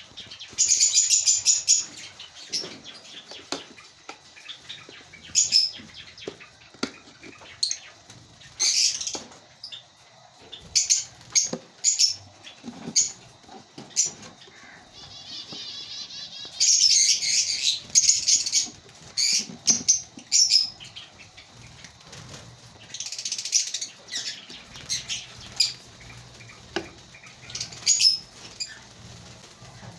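African lovebirds in a breeding colony chirping: many short, shrill chirps, broken by a few longer bouts of rapid chatter lasting a second or two.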